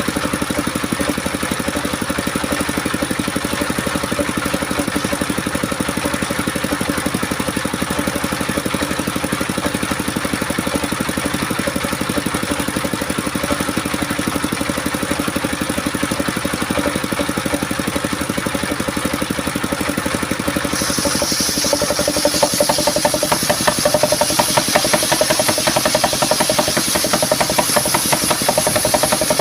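Engine-driven homemade sawmill (serkel) running steadily. About two-thirds of the way in the blade cuts into the coconut-wood log, adding a high hiss over the engine and a louder, fast pulsing.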